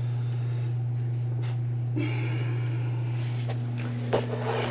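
A motor running with a steady low hum. A rustling, scraping noise joins it about two seconds in, and there is a knock near the end.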